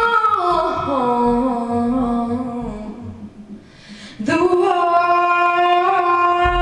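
A woman singing solo with little or no accompaniment: a long phrase that steps down in pitch, a short quiet gap about three seconds in, then a long, steady held note.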